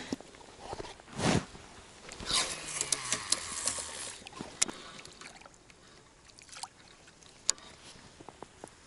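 Baitcasting reel and rod being handled during a retrieve and recast from an inflatable raft, with small water sounds around the boat and a few sharp clicks.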